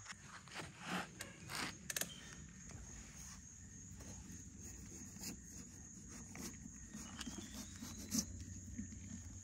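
Quiet scraping and rubbing of a metal spoon scooping the stringy pulp and seeds out of a hollowed pumpkin. There are a few louder rustles in the first two seconds and a sharp click about eight seconds in.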